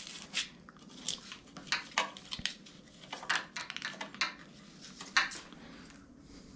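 Scattered light clicks and clinks of gloved hands handling metal parts and hand tools, the loudest a little after five seconds in.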